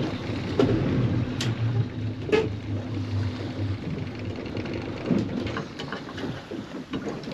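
Mercury outboard motor running at a low idle, a steady low hum that fades out about four seconds in, over water sloshing against a small boat's hull. Two sharp knocks come in the first half.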